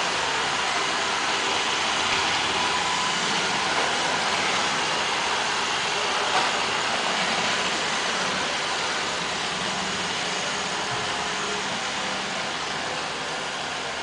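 Roomba robot vacuum running on a hardwood floor: a steady whirr of its vacuum motor and brushes, growing slightly fainter in the second half as it moves away. A brief knock about six seconds in.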